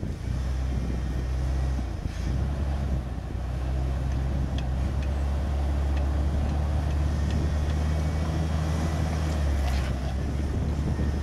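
Jeep Wrangler engine running at low, steady revs while crawling up a rock ledge, with a brief dip about two seconds in. A few faint clicks sound over it.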